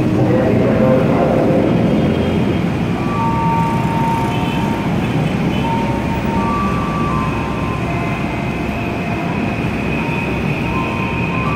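Steady hum of a JR 205-series electric commuter train standing at the platform with its on-board machinery running, with thin high tones coming and going over it.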